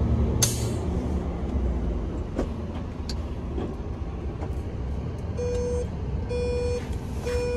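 Steady low engine and road rumble of a loaded SITRAK tractor unit on the move, with a few light knocks. About two-thirds of the way in, a dashboard warning starts beeping about once a second, a short tone each time, which comes with the truck's distance-keeping system at work.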